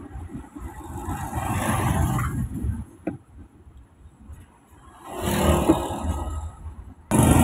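Traffic and road noise heard from inside a moving car. It rises and falls, dips low for a couple of seconds in the middle, then swells again. Just before the end it jumps suddenly to a louder, steadier rumble.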